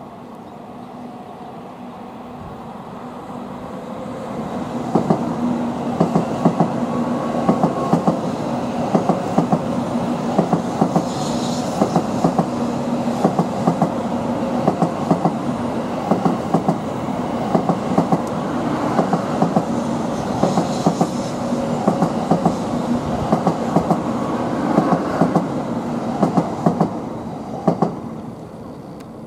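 An N700A Shinkansen train rolling past at crawling speed, slowed for snow, with its wheels clacking over the track in an uneven rhythm over a steady hum. It grows louder over the first few seconds and fades near the end.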